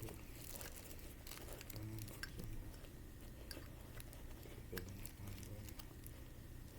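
Faint handling noise: scattered small clicks and rustling over a low steady hum.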